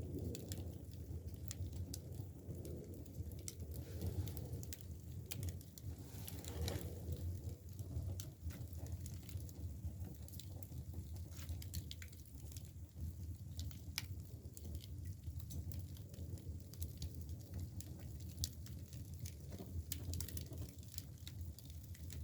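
Split, dried bamboo firewood burning in a traditional Korean firebox (agungi): irregular sharp crackles and pops over a steady low rumble of the fire.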